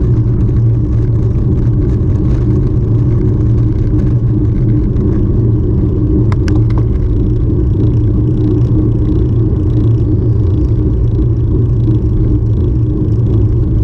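Loud, steady low rumble of wind and road noise on the microphone while moving, with a couple of faint clicks about six and a half seconds in.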